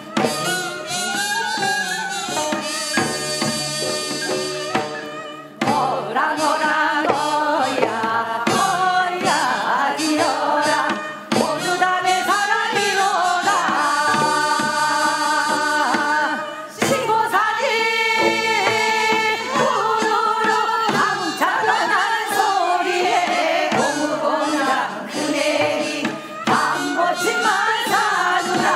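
Women's voices singing a Gangwon-do folk song (minyo) in phrases, over traditional Korean instrumental accompaniment with steady drum strokes.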